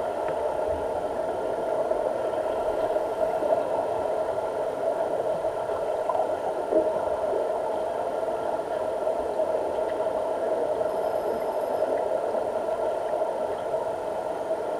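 Steady underwater hum of a diving pool, a mechanical drone heard through the water, with a few faint ticks.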